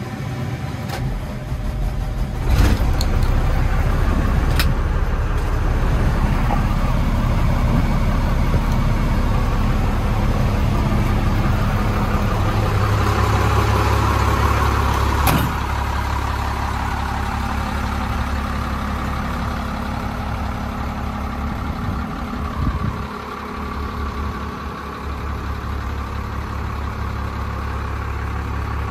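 Cummins diesel engine of a 2001 Freightliner FL70 box truck running steadily at idle. A sharp click about two and a half seconds in brings it up louder, and after another click about fifteen seconds in it runs a little quieter.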